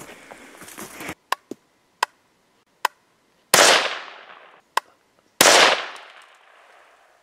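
.17 HMR rimfire rifle fired twice, about two seconds apart, each shot trailing off in a long echo. Around the shots come several sharp clicks of the rifle dry firing, failing to go off.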